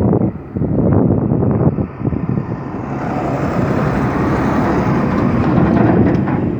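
Komatsu PC490 excavator working: engine and machinery running under load, with clanks and knocks in the first two seconds, then a steady rushing rumble that builds from about three seconds in.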